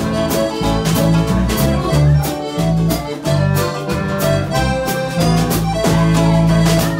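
Live band playing a swing number: accordion carrying the melody over electric bass, strummed acoustic guitar and ukulele, with a steady beat.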